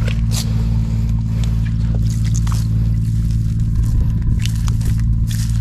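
A steady low engine hum, with scattered short rustles and clicks over it.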